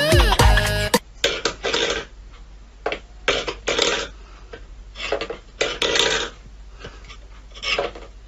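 A stainless steel bowl scraping and rattling on a wooden floor as a cat paws at it, in short, irregular bursts. Music plays for about the first second and cuts off suddenly.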